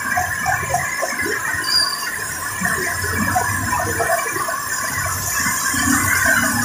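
Heavy rain pouring steadily onto a waterlogged street, with motor vehicles passing through the water.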